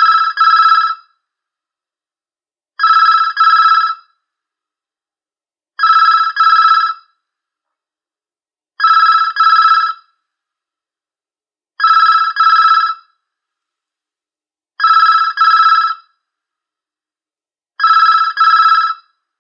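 Telephone ringing in a double-ring pattern: two short trilling rings close together, then a pause. The pair repeats steadily about every three seconds, seven times.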